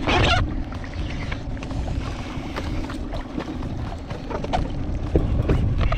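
Wind buffeting the microphone and water against a kayak hull at sea, with a brief rush about the first half second and scattered small knocks and clicks of gear being handled.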